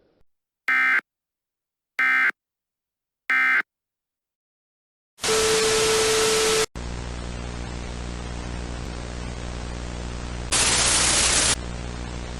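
Three short, identical digital data chirps about a second apart, like the Emergency Alert System end-of-message code, marking the end of the transmission. About five seconds in comes a loud burst of static with a steady low tone. It then cuts to steady TV static with a low hum, which grows louder and hissier for about a second near the end.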